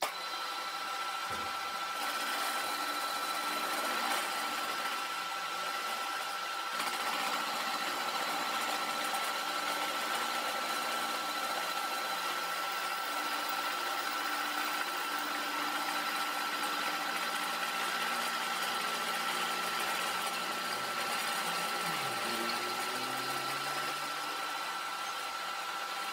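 Milling machine running an end mill in a shallow side cut along a bent steel flat-bar lathe dog: a steady machine whine with one constant high tone.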